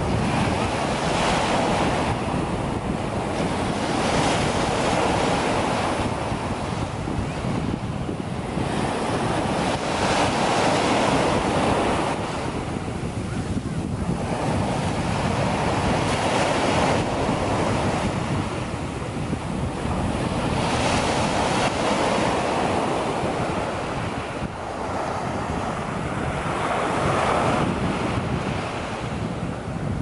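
Small waves breaking and washing up over a sandy beach, the surf swelling and easing every few seconds.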